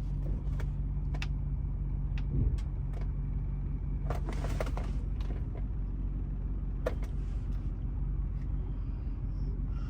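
Car's V8 engine running steadily, heard from inside the cabin as a low hum, with a few scattered clicks and a short rush of noise about four seconds in.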